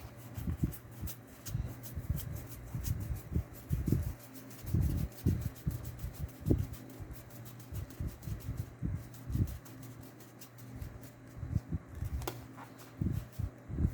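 Trading cards being handled and sorted on a table: irregular soft taps and light rustling, over a steady low fan hum.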